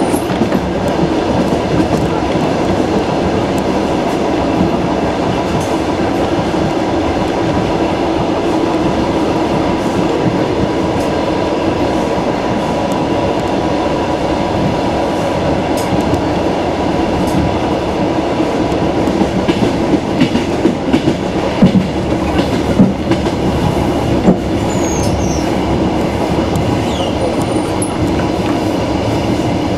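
Passenger car of a moving suburban train running at speed, its wheels rumbling steadily on the track. About two-thirds of the way through comes a stretch of louder, irregular knocks.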